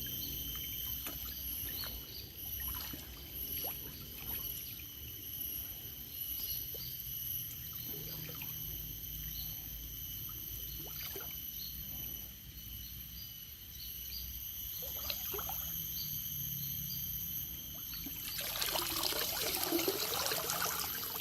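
River water trickling and dripping, with scattered small splashes over a steady high-pitched drone and small repeated chirps. Heavy water splashing starts about 18 seconds in.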